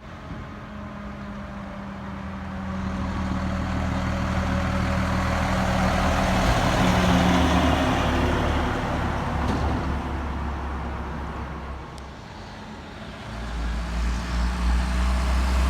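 Road traffic passing: a vehicle's tyre and engine noise swells to a peak about seven seconds in, then fades. Near the end a deeper engine rumble builds as another vehicle approaches.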